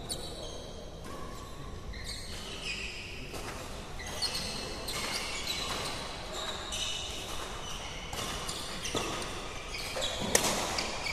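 Badminton court sounds: sneakers squeak briefly and repeatedly on the court floor, and rackets strike a shuttlecock. A sharp overhead racket hit near the end is the loudest sound.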